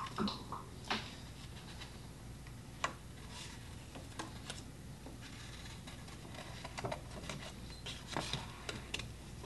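Faint, irregular snips of scissors cutting out paper shapes, with paper rustling and light clicks as the pieces are handled.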